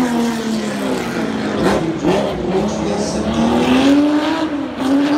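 Race-prepared late-1970s/early-1980s Porsche 911's air-cooled, rear-mounted flat-six running hard on the track, its pitch rising and falling several times as it revs and shifts. It is a loud, steady engine note throughout.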